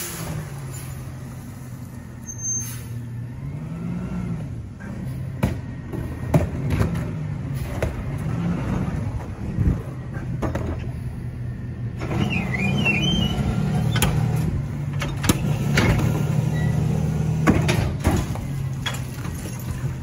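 Diesel engine of an Autocar ACX rear-loader garbage truck, rising and falling in pitch a few seconds in as the truck moves up, then holding a steady idle. Scattered knocks and clatter from a plastic wheeled trash cart being rolled to the hopper and tipped in.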